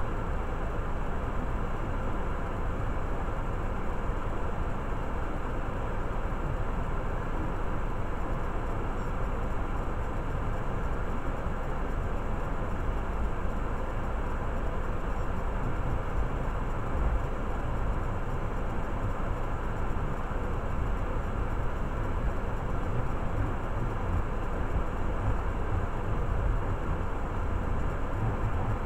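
A 2018 Jeep Compass Trailhawk's 2.4-litre four-cylinder engine idling while parked, heard from inside the cabin as a steady low rumble.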